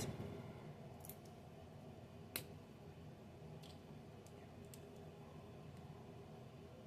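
A handful of faint, sharp plastic clicks from LEGO bricks being handled and pressed together. The clearest click comes about two and a half seconds in.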